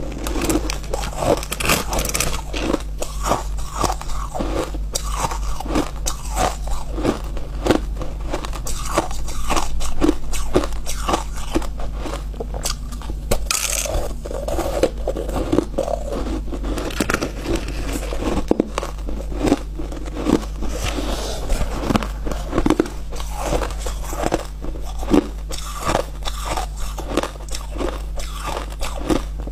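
Refrozen ice being bitten and chewed close to the microphone: a continuous run of crisp, dry crunches, several a second.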